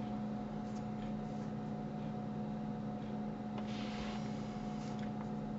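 Steady electrical hum under a faint hiss, the background noise of a home screen-recording setup, with a couple of faint ticks.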